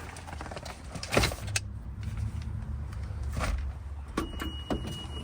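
Car with its engine running, heard as a steady low hum, with a few sharp clicks about a second in and a short steady electronic tone near the end.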